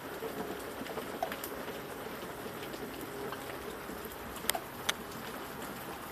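Steady rain falling, an even hiss dotted with single drops dripping and tapping. Two sharper drip taps come close together a little past the middle.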